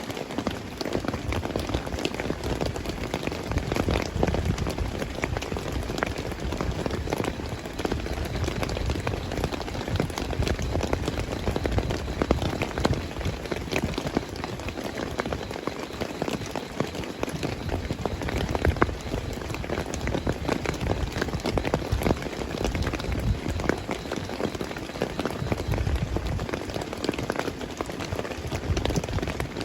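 Heavy rain falling steadily, a dense wash of countless drops striking surfaces close by.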